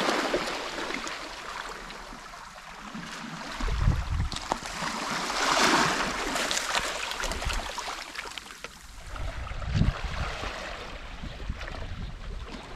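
Small sea waves washing in over rocks and pebbles at the water's edge; the hissing wash swells at the start and again about six seconds in, with a few short low rumbles.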